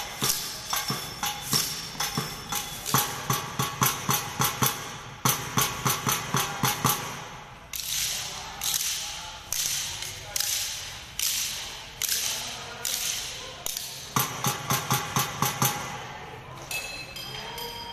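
Wooden sticks struck in a rhythmic group percussion routine: fast, sharp clacks that thin to fewer, spaced strikes about halfway through, then speed up again.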